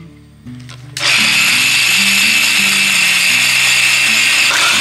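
Electric mixer grinder switched on about a second in, its motor then running steadily at full speed with a high whine as it grinds soaked peanuts and lemon juice into a paste.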